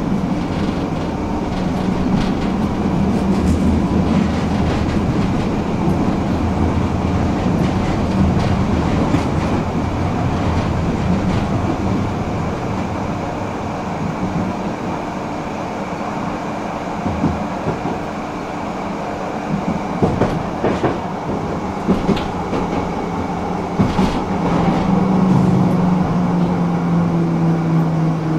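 Tram running along its track with a steady rolling rumble. Several sharp clacks of the wheels over rail joints or points come in the second half, and a low steady hum comes in near the end.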